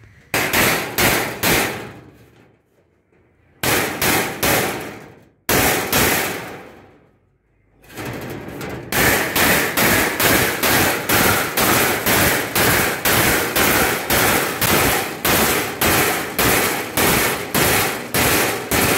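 Hammer blows on a 1.5 mm zinc-coated steel sheet, each with a short metallic ring. There are short runs of strikes with pauses at first, then from about halfway a steady run of two to three blows a second.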